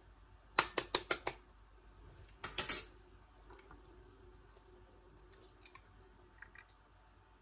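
A raw hen's egg cracked against a glass bowl: five quick sharp taps on the shell, then a cluster of cracks about two and a half seconds in as the shell breaks.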